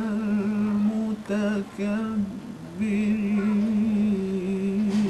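A man chanting a Quran verse in melismatic tajweed style, drawing out long held notes with a wavering ornament at a steady pitch, broken by two short pauses. This verse about the fire of hell is given a mournful, weeping delivery.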